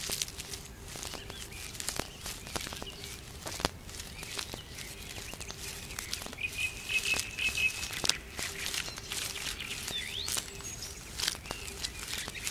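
Outdoor nature ambience with birds chirping: a run of quick chirps about six seconds in and a short rising whistle near ten seconds, over a scatter of small clicks and crackles.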